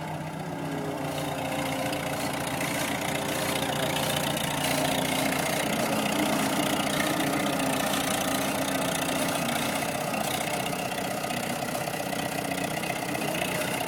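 Skid steer engine running steadily, growing a little louder over the first few seconds.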